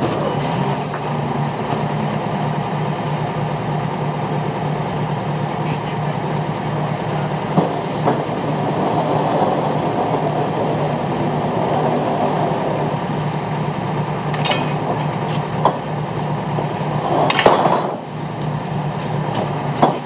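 Well-servicing pulling unit's engine running steadily while 2-7/8" tubing is laid down, with a few sharp clanks as the joints are handled and a longer, louder clatter near the end.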